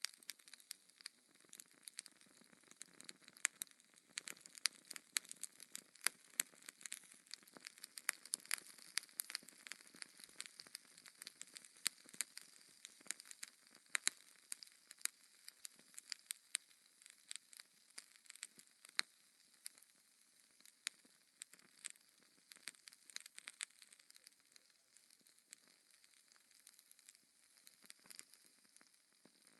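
Wood fire of burning logs crackling and popping, with many sharp irregular pops over a faint hiss.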